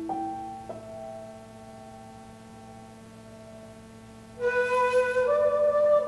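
Shakuhachi and piano duet in an ambient, new-age style, played from a cassette tape. Two soft piano notes ring and fade. About four and a half seconds in, the shakuhachi enters louder with a breathy held note, then steps up to a higher one.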